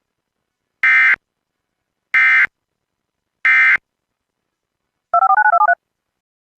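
Emergency Alert System end-of-message: three short bursts of screechy digital data tones, evenly spaced about a second apart. These are followed by a brief warbling beep sequence that alternates between two pitches.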